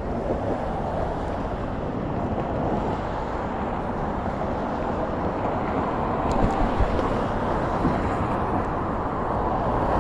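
Steady road and traffic noise heard while riding a Bird electric scooter along a city street, with a few faint clicks a little past halfway.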